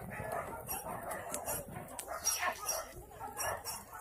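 Dogs barking and yipping in short, irregular bursts.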